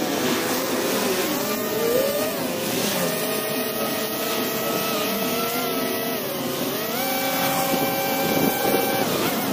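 Two-stroke gas string trimmer running at high speed, its engine pitch dipping and rising a few times as it cuts.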